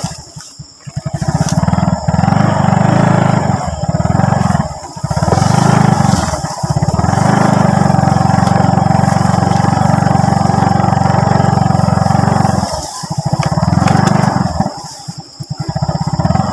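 Motorcycle engine running while ridden along a rough dirt trail. The throttle is eased off and opened again several times, with short dips in engine sound about a second in, around five and six and a half seconds, and again after thirteen seconds.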